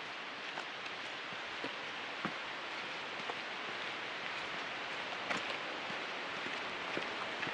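Steady rushing hiss of falling water from the falls and river beside the trail, with a few scattered footsteps on the dirt and rock path.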